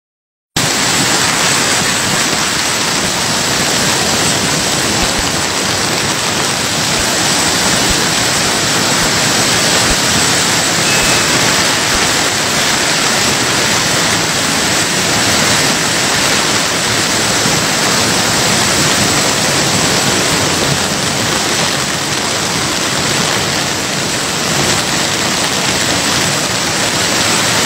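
Loud, steady rush of a river in flash flood: a muddy torrent of floodwater surging down its channel.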